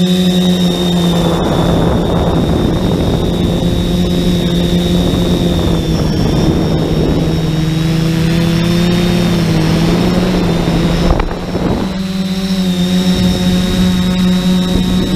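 Quadcopter's four brushless motors (SunnySky X2212 980 kV) spinning 10-inch APC props, heard from the onboard camera as a steady hum with a high whine, the pitch shifting slightly with throttle. A rushing wind noise runs over it for most of the time, and there is a brief sudden dip about eleven seconds in.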